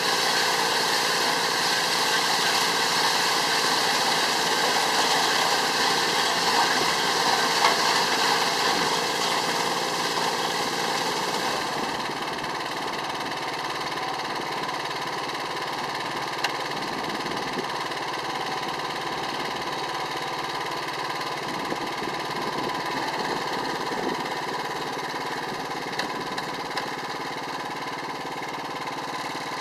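Yanase 810HST snowblower's engine running steadily after its repair. About a third of the way in the sound gets a little quieter and loses much of its hiss, then keeps running evenly.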